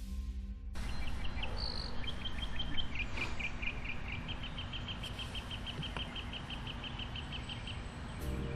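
A small songbird chirping in a long run of short, high notes, about four or five a second, over a steady low outdoor background rumble.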